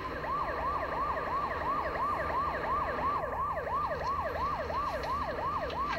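Emergency vehicle siren in a fast yelp, sweeping up and down about three to four times a second. It switches into the yelp from a slower rising wail just as it starts.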